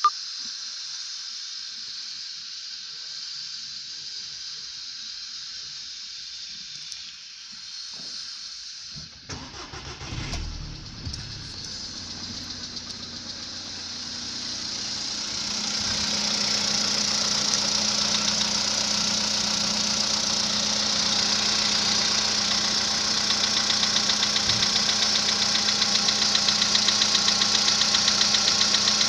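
Volkswagen Polo Sedan's 1.6-litre four-cylinder petrol engine cold-starting: about nine seconds in the starter cranks and the engine catches, then it idles and grows louder. A fast, regular knock comes through the idle, the cold-start engine knock that the owner is recording.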